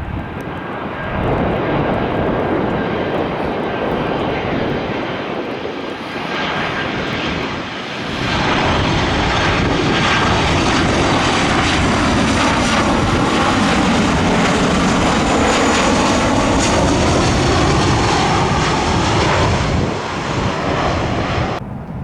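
Jet airliner passing close by, its engine noise swelling about a second in and growing much louder about eight seconds in. The tone sweeps down and back up as it passes, and the noise drops off near the end.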